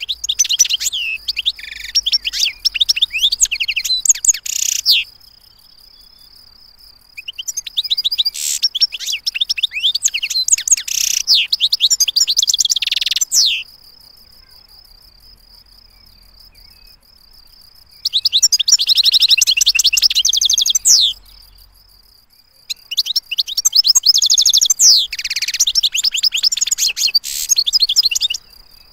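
European goldfinch singing its twittering song in four bursts of rapid, high notes, separated by pauses of a few seconds. A steady high insect-like trill carries on underneath in the gaps.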